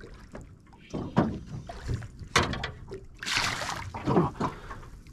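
Water splashing as a hooked squid thrashes at the surface beside a small boat. There is a sharp knock about two and a half seconds in and a longer burst of splashing a little after three seconds.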